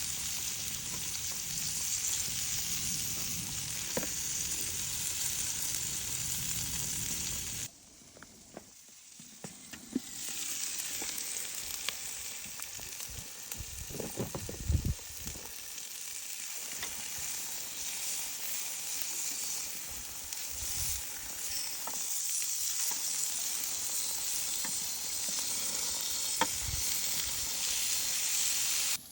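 Chicken inasal sizzling steadily as it cooks. The sizzle drops away for about two seconds near the one-third mark, and a few light knocks come about halfway through.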